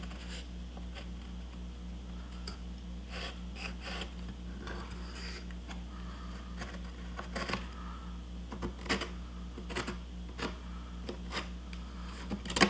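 Pencil scratching on a cedar board as it traces around a wooden template, in short irregular strokes and ticks, over a steady low hum.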